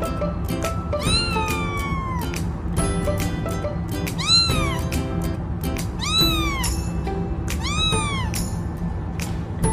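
A cat meowing four times, each meow rising then falling in pitch, the first drawn out longer than the rest, over background music with a steady bass.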